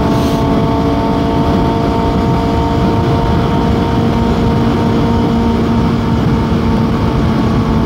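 Suzuki GSX-S750's inline-four engine held at steady revs while riding at speed, with heavy wind rush on the microphone.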